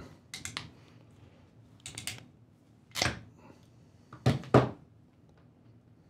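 West Mountain Radio ratcheting crimper squeezed down on a 30 A Powerpole contact on 12-gauge wire: a series of sharp clicks and snaps over about five seconds, the loudest near 3 s and a pair just after 4 s.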